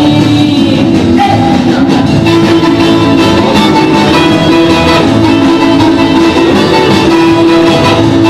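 Recorded music: a full-band vintage rock and roll or R&B record with guitar, playing loud and continuously.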